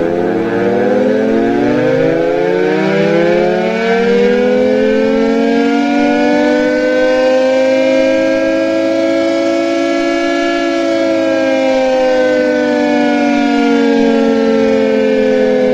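Mechanical warning siren sounding a loud wail: its pitch winds up over the first several seconds, holds steady, then slowly starts to wind down near the end.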